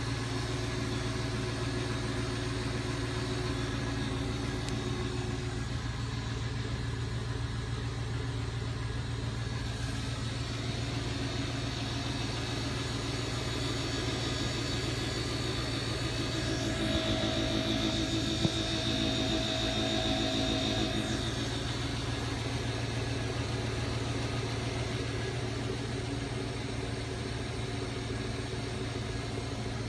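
Federal Signal TwinSonic Model 12 lightbar's type 1 rotator motor running, turning the lamps with a steady, continuous hum. The sound swells slightly for a few seconds around the middle.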